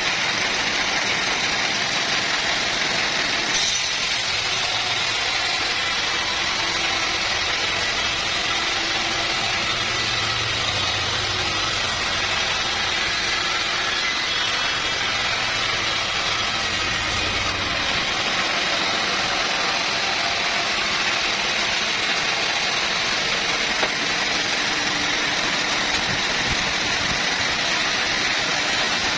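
Sawmill saw running steadily while sawing a teak log, a continuous mechanical drone and hiss. A higher, brighter hiss joins at about four seconds in and stops abruptly around seventeen seconds in.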